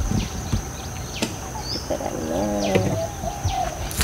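Birds chirping and calling over a steady high insect whine, with a few low thumps.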